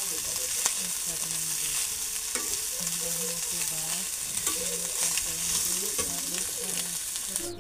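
Metal spatula stirring and scraping boiled chicken and potato mash in a black metal kadhai over a gas flame, with a steady sizzle of frying and scattered clicks of the spatula against the pan.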